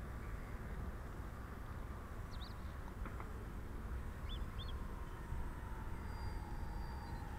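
Distant hum of a radio-controlled Short S.23 Empire flying boat model's motors, its pitch slowly falling as the model comes in low over the water, under a steady low rumble. A few short bird chirps about two and four seconds in.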